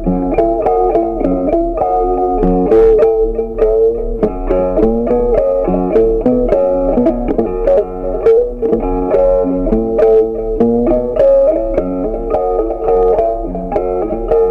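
Background music: a plucked guitar tune with quick, steady note changes.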